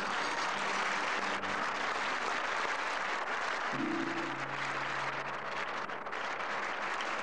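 Audience applauding steadily at the end of a dance performance. A held low tone sounds briefly a little past the middle.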